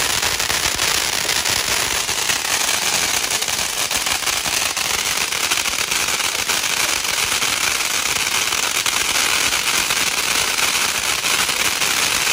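Firecrackers going off in a steady, dense crackle of small pops mixed with a hiss of sparks, without a pause.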